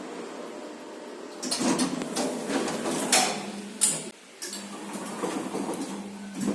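Lift's sliding doors moving, with a run of clicks and knocks, then a steady hum.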